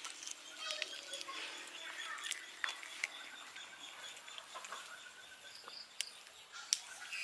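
Cats and kittens eating fish scraps from a plate, small clicking and smacking chewing sounds scattered throughout, with faint bird chirps in the background.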